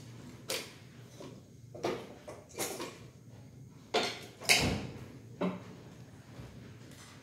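Handling noises: a series of knocks and rustles as a man moves about and sets a black object down on a wooden bench, the loudest about four and a half seconds in.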